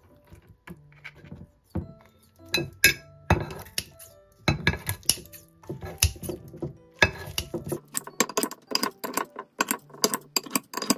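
Kitchen scissors snipping through steamed dumplings in a ceramic baking dish, the blades clicking shut and clinking against the dish. The snips come sparsely at first, then in a quick, dense run over the last few seconds.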